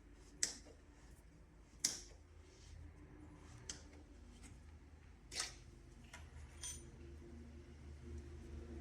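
A few sharp clicks and knocks of small hard parts being handled: two loud ones near the start, a longer rattling one about five and a half seconds in, and fainter ones between, over a steady low hum.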